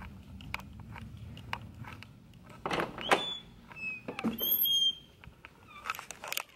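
Household movement noise: a low hum that stops about two seconds in, then a few knocks and several short high squeaks between about three and five seconds in, with light clicks throughout.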